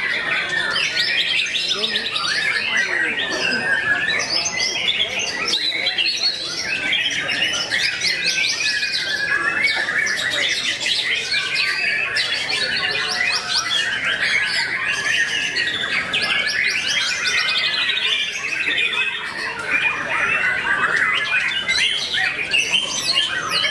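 White-rumped shamas singing without pause: a dense stream of varied phrases and fast trills, with several birds' songs overlapping.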